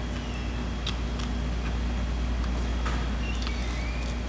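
Restaurant room noise: a steady low hum with a few scattered sharp clicks and clinks.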